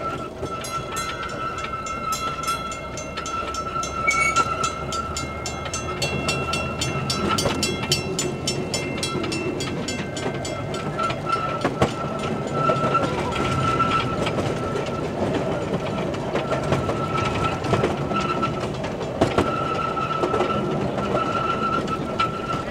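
Open-car excursion train running along its track: a steady rumble, a high whine that holds and later comes and goes, and rapid even clicking of the wheels during the first half.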